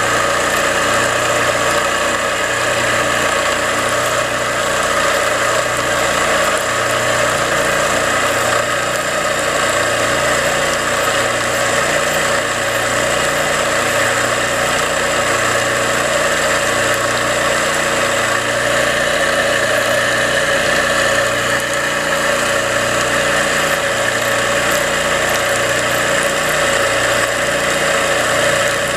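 Terada electric sprayer pump running steadily on a test run after repair, its rust-seized moving parts freshly cleaned, oiled and greased. It gives a continuous mechanical hum with a regular low throb.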